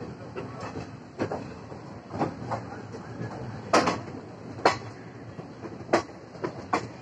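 Moving passenger train's wheels clattering over rail joints and points: irregular sharp clacks, the loudest about four, five and six seconds in, over a steady rolling rumble, heard from the coach's open door.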